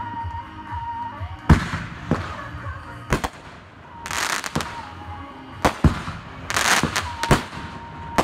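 Aerial firework shells bursting overhead: a string of sharp bangs, one a quick double, with two spells of dense crackling from crackle stars between them.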